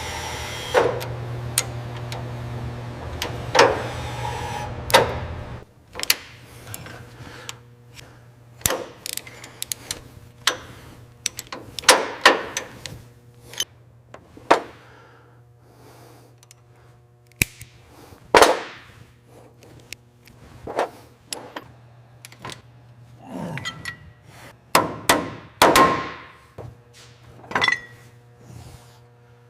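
Workshop hand tools knocking and clanging on metal at irregular intervals, some strikes ringing briefly. A steady low hum runs under the first five seconds or so, then fades to a faint background.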